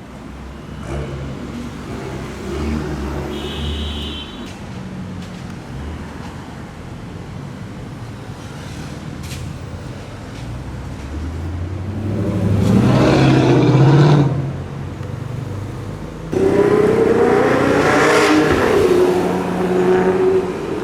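Sports car engines accelerating hard past, twice. A low rumble builds into a loud, rising run about twelve seconds in. It cuts off suddenly to a second loud acceleration whose pitch rises and then falls away.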